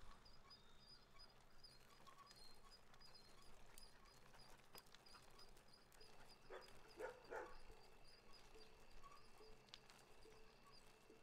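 Near silence: faint outdoor ambience with a soft, evenly repeated high chirping throughout, and three short, soft sounds about six and a half to seven and a half seconds in.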